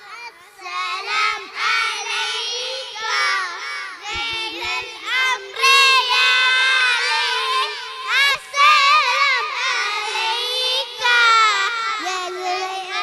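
A group of young children singing together into microphones, several high voices overlapping, in phrases with brief pauses between them.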